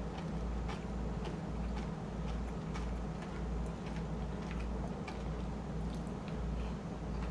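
A person chewing a mouthful of shrimp chili and rice in a steady rhythm, with small wet mouth clicks, one or two a second.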